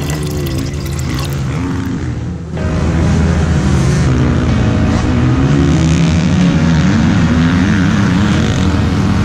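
Motocross bike engine revving up and down, mixed with background music. The sound drops briefly about two and a half seconds in, then comes back louder.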